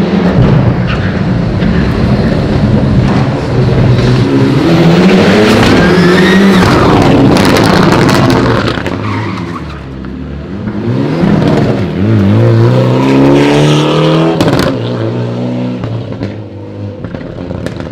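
Mitsubishi Lancer Evo X rally car's turbocharged four-cylinder revving hard, with tyres squealing as it slides through a tyre chicane. The engine pitch climbs, eases off about ten seconds in, climbs again and cuts off sharply about fifteen seconds in.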